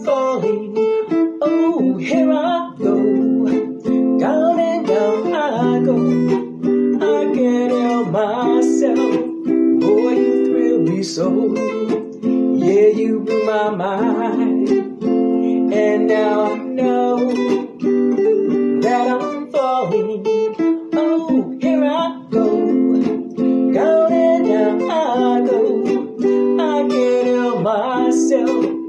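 Electric guitar playing chords, with a voice singing over it.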